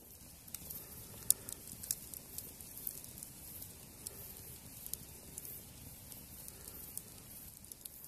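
Wood campfire crackling, with scattered irregular pops and one sharper snap just over a second in.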